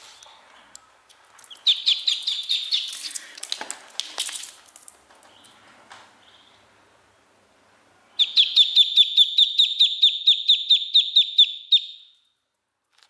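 Duckling peeping: a short run of quick peeps with some scuffling about two seconds in, then a long, even series of about five high peeps a second from about eight seconds in, which cuts off suddenly near the end.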